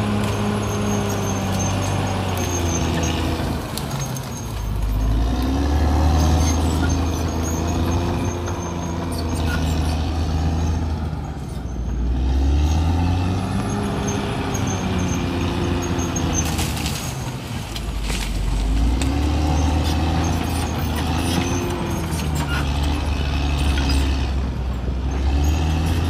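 Caterpillar D6R XL bulldozer's diesel engine working while the blade pushes into felled trees and brush. The engine revs up and drops back several times.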